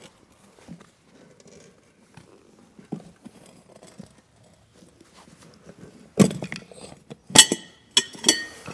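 Ratchet strap being fitted and cinched around a small tubeless lawnmower tire, to force the bead out toward the rim: soft handling noises, then four sharp, ringing metal clacks in the last three seconds.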